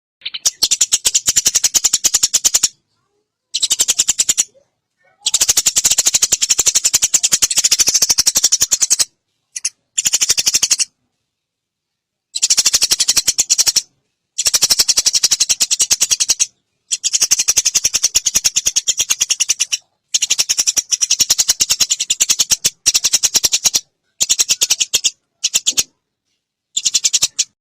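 Eurasian tree sparrow calls, fast chattering runs of high chirps in bursts of one to three seconds broken by short silences.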